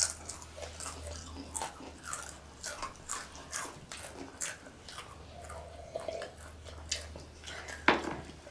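Doritos tortilla chips being crunched and chewed: irregular crisp crunches, one louder and sharper near the end, over a low steady hum.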